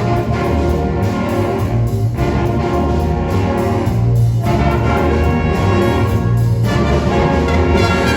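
Orchestral music with brass, trumpets and trombones, playing loudly and steadily.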